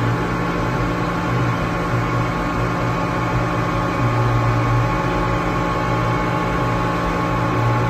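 Steady static from a CB radio tuned to an open channel between transmissions, coming through its extension speaker: an even hiss with a low hum that swells and dips, and several faint steady tones.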